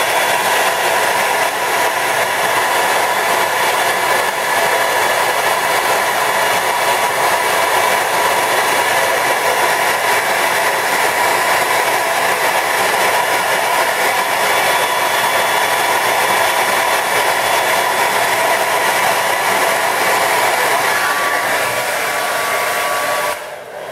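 Hair dryer running steadily on hot air, warming candle wax rubbed into a spinning rod's ferrule joint so it melts in: an even blowing hiss with a faint steady tone, switched off near the end.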